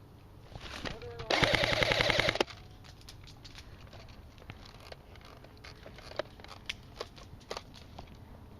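Airsoft rifle firing one full-auto burst of about a second, a rapid even string of shots, loud and close. Scattered faint pops and clicks follow: shots and BB hits farther off.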